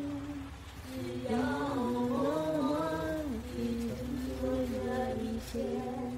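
One unaccompanied voice singing a slow melody, holding long notes that slide between pitches, with a short pause between phrases about a second in.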